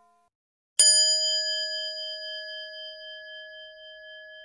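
A single bell-like chime struck about a second in, then ringing on and slowly fading.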